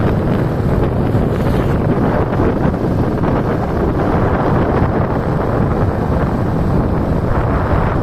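Loud wind buffeting the microphone of a camera travelling at road speed, a steady, dense rumble with no speech over it.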